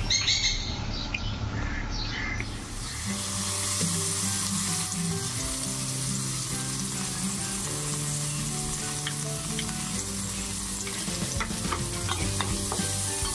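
Chopped okra frying in hot oil in a nonstick kadai: a steady sizzle that sets in about two seconds in as the okra goes into the pan, with a few light clicks near the end.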